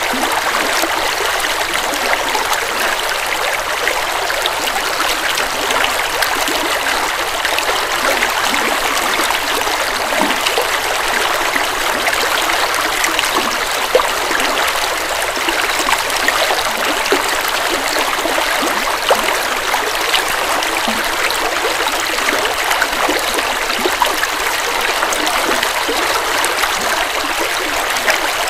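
Forest river flowing steadily over rocks, a continuous rushing and burbling with small splashes.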